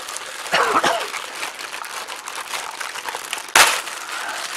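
Plastic packaging crinkling as it is handled, with one sharp knock about three and a half seconds in.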